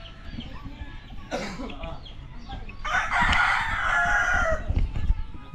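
A rooster crowing once, a single long call of nearly two seconds starting about three seconds in.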